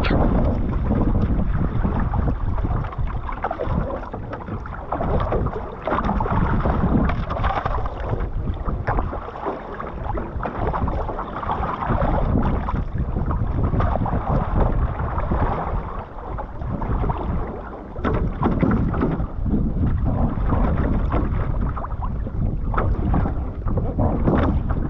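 Wind buffeting the microphone over water lapping and splashing against the hull and float of a one-person outrigger canoe on open sea.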